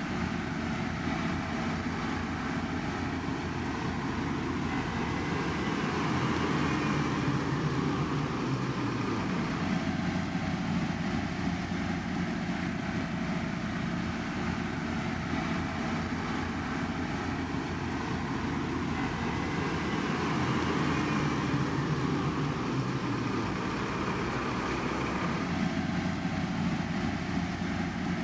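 Heavy road-construction machinery engines running steadily, swelling a little louder twice.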